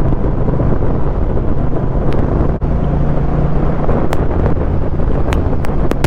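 Wind rushing over the microphone over the steady running of a 2021 Honda Rebel 1100 DCT's parallel-twin engine at cruising speed. Several sharp crackles and a brief dropout about two and a half seconds in come from the dual vlog mic setup, which the rider suspects is the mic or the GoPro not liking the splitter.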